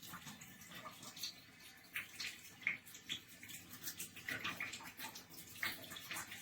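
Shower head spraying water, a steady rush with irregular splashes as the spray hits the tub and surfaces.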